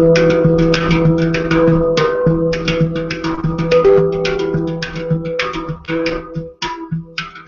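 Handpan played with the fingertips: a quick run of struck, ringing steel notes, several to the second. The notes overlap, and a low note rings on steadily underneath.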